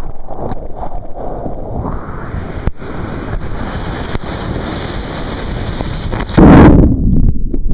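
Ocean surf washing around a camera held in the sea, with wind buffeting the microphone. About six seconds in comes a much louder rush of water and wind that lasts about a second.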